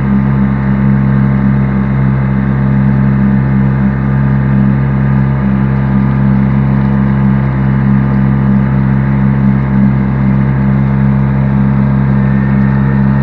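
An engine running at a steady speed, giving a loud, even drone that does not change.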